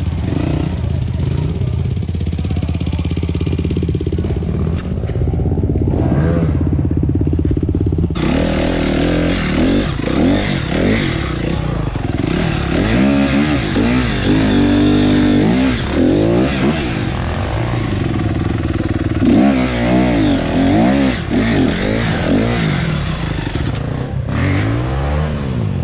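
Dirt bike engine running steadily, then from about eight seconds in revving up and down over and over, its pitch rising and falling.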